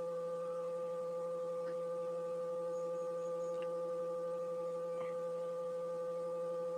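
A steady hum made of several fixed tones, with a few faint light clicks.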